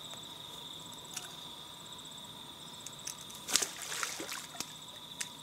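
Crickets trilling steadily at a high pitch, with a few brief sharp sounds, the loudest about three and a half seconds in.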